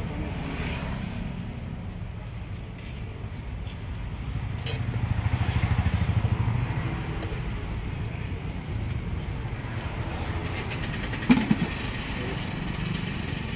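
Roadside traffic: a steady low engine rumble that swells as a vehicle passes about halfway through, with a single sharp knock near the end.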